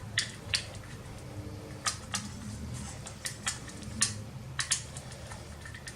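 Light metallic clicks and clinks, about a dozen at irregular intervals, from a hard drive being worked out of its metal mounting bracket.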